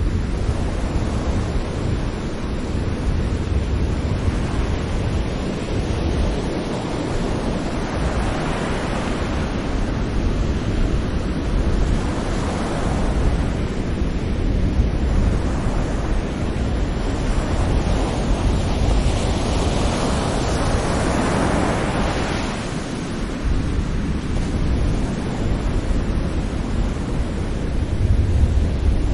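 Sea waves breaking gently on a beach in a continuous wash, swelling and fading every few seconds over a low, steady rumble.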